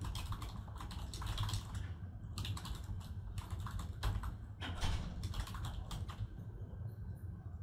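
Typing on a computer keyboard: quick runs of keystrokes with short pauses between words, stopping about six seconds in, over a low steady hum.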